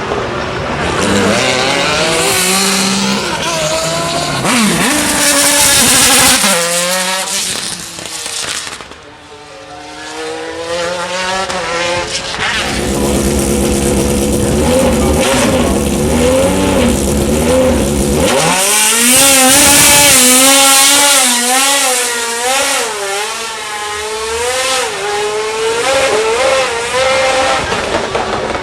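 GT race car engine at full racing load, its note climbing and dropping sharply with gear changes. The note dips quieter about eight to ten seconds in, then comes back strong.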